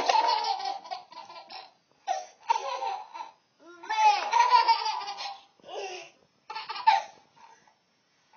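A small child laughing in about six bouts, with short pauses between them.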